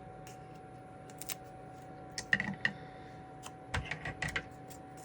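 Light clicks and taps of small parts being handled and pressed into place on a phone motherboard, in a few short clusters, over a faint steady hum.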